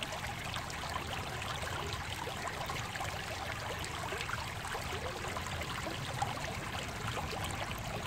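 Shallow stream running over rocks and stones: a steady rush of flowing water with small splashes and trickles.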